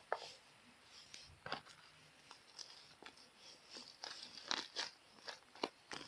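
Slime with shaving foam mixed in being squished and kneaded by hand: faint, irregular little pops and crackles, a few louder ones in the second half.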